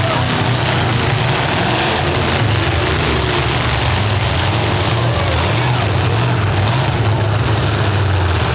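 Demolition derby cars' engines running together, a steady loud engine noise with no breaks.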